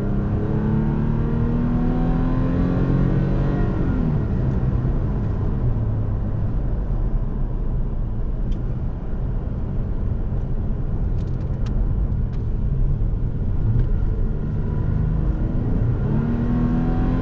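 2017 Toyota Tacoma's 3.5-litre V6 accelerating, heard from inside the cab: the engine note rises for about four seconds, drops at an upshift of the six-speed automatic, runs steadier with road rumble, and climbs again near the end.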